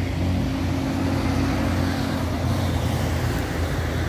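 Street traffic: a car engine running close by with a steady low hum, over a wash of road noise.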